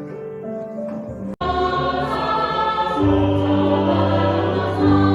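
Background music: quiet held notes, then after a brief cut about a second and a half in, choral music with sustained voices, joined by a deep bass about three seconds in.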